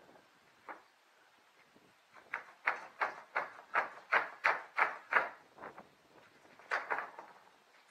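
A hand tool knocking on old wooden roof planks: a run of about ten sharp knocks at about three a second, then two more near the end.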